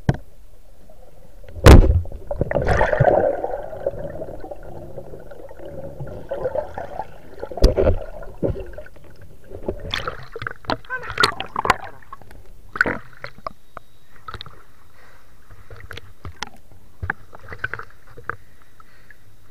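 A diver moving through river water with the camera partly underwater. A very loud knock comes about two seconds in, followed by a few seconds of churning, bubbling water. A second knock comes near the middle, then scattered clicks and small splashes.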